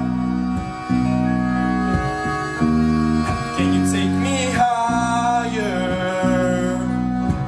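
Live band playing: bass, guitar and accordion with drums, sustained chords and melody lines between vocal phrases.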